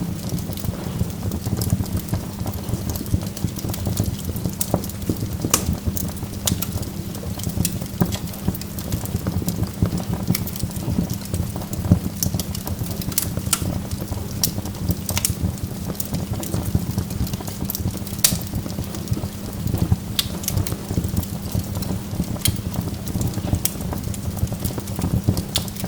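Burning logs crackling: frequent sharp, irregular pops and snaps over a steady low rumble of the fire.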